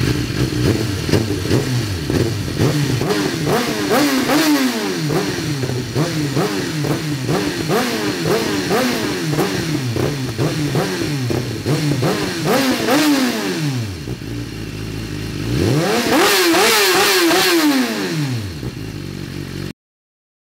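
BMW S 1000 RR inline-four engine breathing through an Akrapovic Evolution full titanium exhaust with carbon muffler and no catalytic converter, revved in quick repeated throttle blips. Near the end comes a longer, higher rev.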